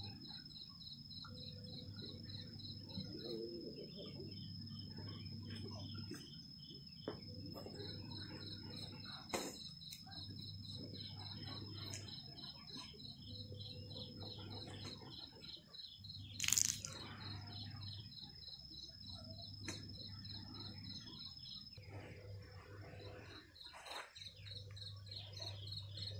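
Insects chirping faintly in a rapid, steady pulsing trill, with a low hum that comes and goes. There are a few sharp clicks, the loudest about nine and sixteen seconds in.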